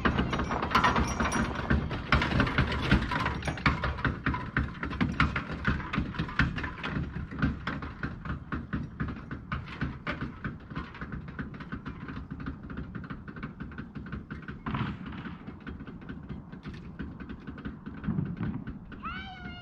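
A truck with its engine pulled rolling away downhill, giving a dense run of knocks and clatter that fades as it goes; the owner puts the poor roll down to its driveshaft flopping around. A short animal call comes near the end.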